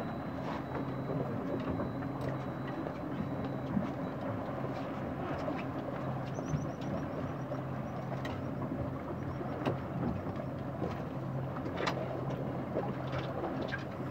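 Boat engine running steadily with a constant low hum, over an even hiss of wind and water.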